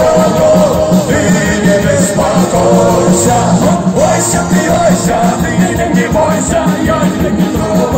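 Live folk-rock band playing with a steady driving beat: button accordion over electric guitars, bass and drums.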